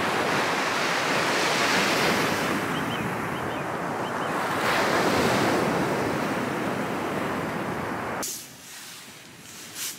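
Sea surf washing up a shingle beach, with wind on the microphone; the surge swells twice and cuts off suddenly about eight seconds in. A few faint high chirps come through in the middle.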